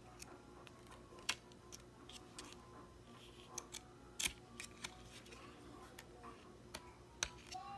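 Scattered light clicks and taps of small accessories and papers being handled and set down on a table, two of them sharper about a second in and near the middle.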